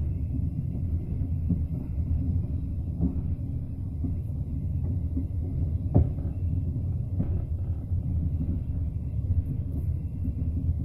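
Passenger train carriage heard from inside while moving: a steady low rumble of the wheels on the rails, not loud. A few short knocks come through it, the sharpest about six seconds in.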